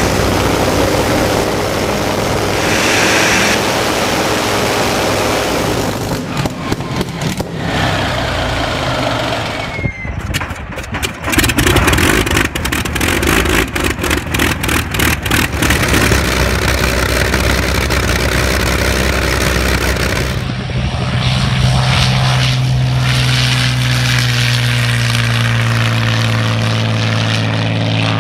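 Daimler-Benz DB 605 inverted V12 aero engines in several cut-together clips. One runs on a test stand, then Messerschmitt Bf 109 engines fire with a quick run of exhaust beats. From about twenty seconds in, an engine holds a steady, high-power drone as a Bf 109 takes off.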